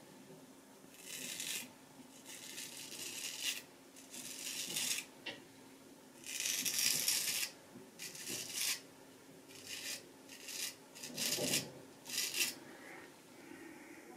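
Kaeser's No 402 straight razor scraping through stubble and shaving lather on the neck, in a run of short strokes with brief pauses between them, about nine in all.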